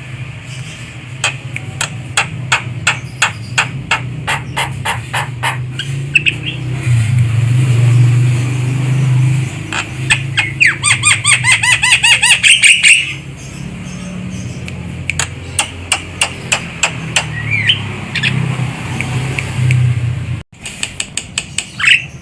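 Javan myna calling: quick runs of sharp clicks, then a loud burst of harsh, rapidly repeated chattering notes about halfway through, then more clicks and a few short whistles. A low steady hum lies underneath, and the sound drops out briefly near the end.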